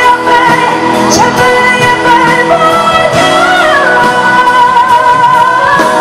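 Live pop song: a female singer holds long sung notes over a band with keyboard and guitar, her voice stepping up about a second in and sliding down partway through.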